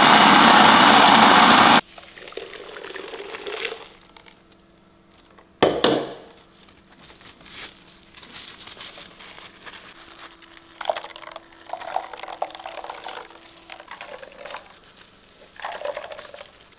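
Electric blender grinding coconut pieces, cutting off about two seconds in. After that come quieter handling sounds, with a sharp knock about six seconds in, and the wet splash of coconut milk squeezed from blended coconut through a cloth into a glass bowl.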